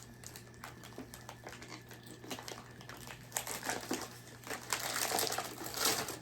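Crinkling and rustling of snack packaging being handled, with many small crackles, growing busier and louder about halfway through.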